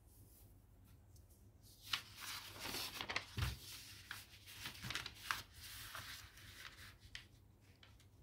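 A sheet of origami paper rustling and crackling as it is lifted, folded in half and creased flat against a tabletop, with a soft knock about three and a half seconds in.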